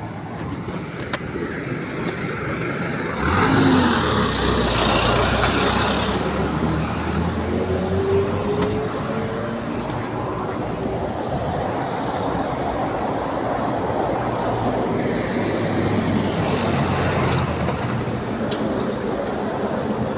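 Road traffic noise, with a vehicle going by loudly about three seconds in and another swell near the end.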